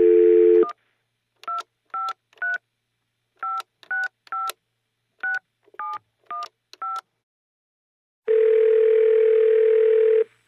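Telephone call being placed: a brief dial tone, then a string of about ten touch-tone keypad beeps as a number is dialled, then a ringback tone sounding once for about two seconds near the end as the line rings.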